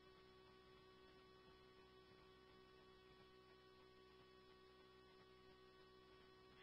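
Near silence: a faint, steady electrical hum in the scanner radio recording.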